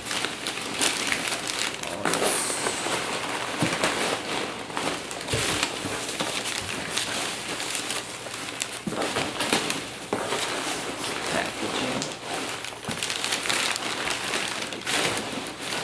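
Hands rummaging through packing material in a cardboard shipping box: continuous crinkling and rustling with many small sharp crackles.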